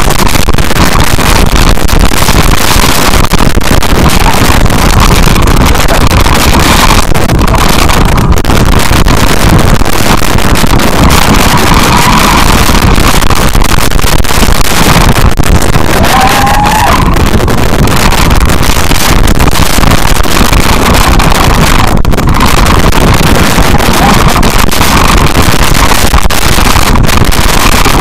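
Loud, distorted wind rush buffeting a phone's microphone as it swings through the air on an amusement ride. It is steady and overloaded, with no clear breaks.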